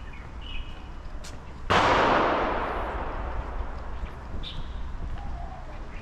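A sudden loud rushing hiss starts about two seconds in and dies away over the next two seconds. Birds chirp briefly before and after it.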